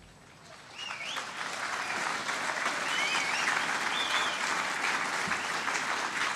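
Crowd applauding, starting about a second in and holding steady.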